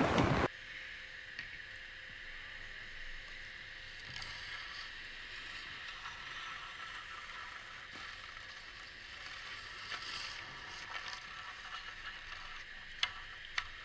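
A hand rubs over the camera's microphone for a moment at the start. Then there is a faint steady hiss of open-air background, with a couple of sharp clicks near the end.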